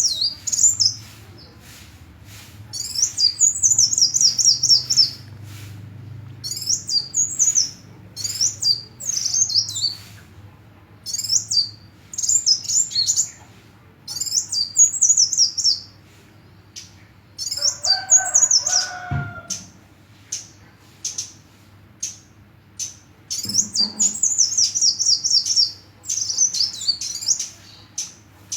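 Sunbird (the 'kolibri' of Indonesian bird keeping) singing: quick, high-pitched twittering phrases about a second long, repeated with short pauses. About two-thirds of the way through, a lower squeaky note is followed by a sharp click.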